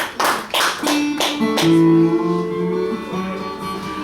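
The last few claps of applause die away. A guitar is then plucked: a few single notes, then a chord left ringing.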